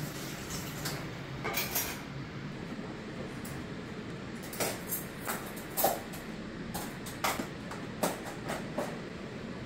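Metal cutlery clinking and clattering as spoons and forks are handled in a kitchen drawer's cutlery tray: a string of sharp, irregular clinks, most of them in the second half, over a steady low background noise.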